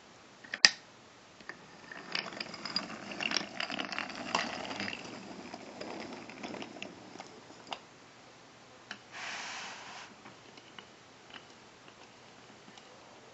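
Wooden toy train set being handled: a sharp click near the start, then a few seconds of clattering and clicking as the toy train and its wooden and plastic parts are moved on the wooden track, and a short scrape about nine seconds in.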